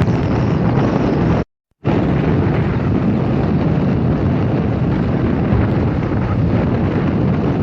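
Wind rushing hard over the microphone on a moving motorbike, a steady loud roar broken by a brief cut to silence about a second and a half in.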